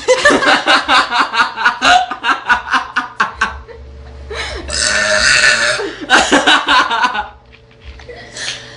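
A teenage girl burping loudly: a long, pulsing burp lasting about three and a half seconds, then two more burps around five and six seconds in.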